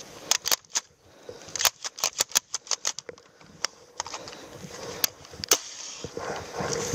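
Airsoft rifle that has jammed, clicking and clacking as it is worked: a string of sharp mechanical clicks, closely spaced between about one and three seconds in, then a few scattered ones.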